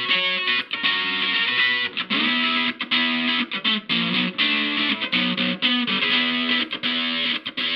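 Electric guitar played through a KATANASOUND distortion pedal, giving a thick, gritty tone. It plays a riff of chords and repeated stabbed notes, with brief gaps between phrases.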